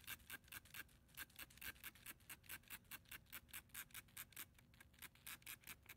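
Trigger spray bottle pumped quickly, misting water onto a paper towel in faint, even spritzes, roughly five a second.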